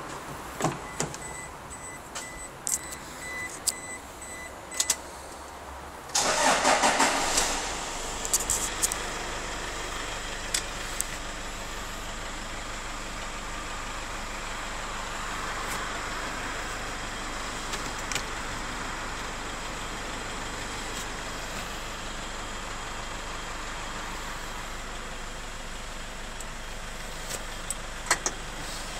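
Toyota Hilux pickup's engine cranked and started about six seconds in, then idling steadily at about 1,000 rpm, heard from inside the cab. Before the start, a pulsing beep and a few clicks.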